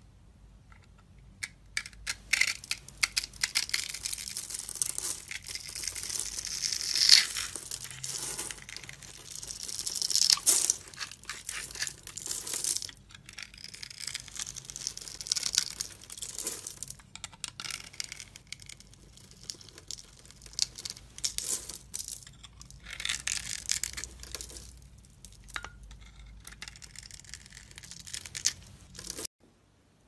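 Knife cutting and scraping into a dry, grid-scored bar of soap, with crunchy, crumbly crackling as flakes and cubes break off, in uneven strokes. It stops suddenly near the end.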